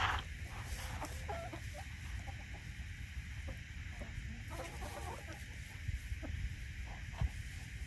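Chickens clucking: scattered short clucks, with a brief flurry of calls about halfway through.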